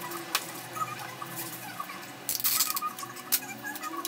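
Stiff white cardstock being handled and folded on a cutting mat: paper rustling and scraping with a few sharp clicks, and a louder rustle a little past halfway.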